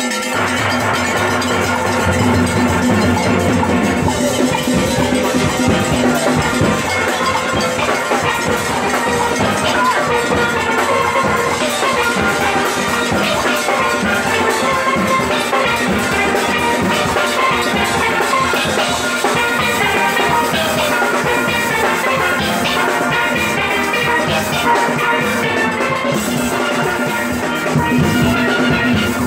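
A full steelband playing loud and close: many steel pans ringing together in one continuous stream of music, with drums underneath.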